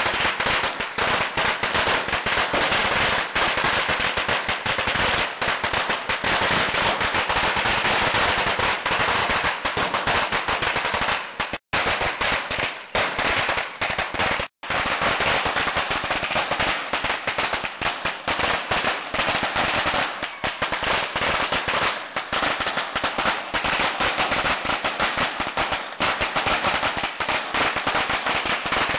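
A long string of firecrackers going off in a rapid, continuous crackle of overlapping bangs, broken only by two split-second gaps near the middle.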